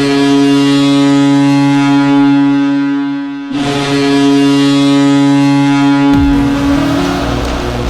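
Boston Bruins arena goal horn blasting twice: a long, steady low blast, a brief break, then a second blast. Music starts as the second blast ends, about six seconds in.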